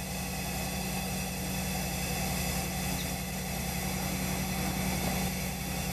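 Beam-mounted ultrasonic seamer running as it travels along its chain-and-sprocket drive, welding two overlapped layers of synthetic carpet backing: a steady mechanical hum with a fast, even low throb.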